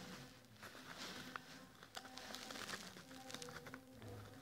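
Faint handling of paper stickers: light rustles and small clicks of paper. Faint music plays in the background.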